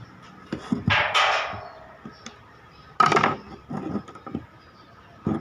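Knocks and short scrapes of hand tools and small angle-grinder parts being handled, with two louder rasping scrapes, one about a second in and one about three seconds in, and a sharp knock near the end.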